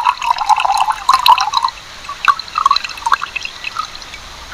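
The last of the rinse water draining and dripping off a tilted steel bowl of washed horse gram. A splashy trickle for the first second and a half, then scattered drips.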